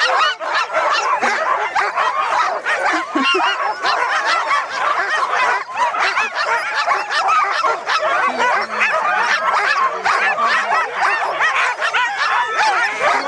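A pack of sled dogs barking and yelping all at once, many short high calls overlapping without let-up: the excited din of a team being hooked up for a run.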